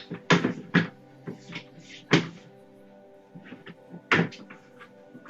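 Plastic parts of a OneFastCat cat exercise wheel knocking and clacking together as the ring is worked into its grooves: several sharp knocks at uneven intervals, over background music.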